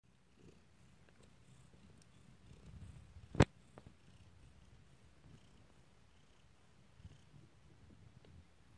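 Soft, steady purring of a mother cat nursing her 10-day-old kittens. A single sharp click cuts in about three and a half seconds in.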